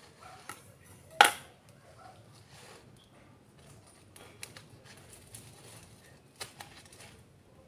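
Hands handling a potted succulent in a plastic pot: one sharp click about a second in, then a few lighter clicks and faint rustling of the stems.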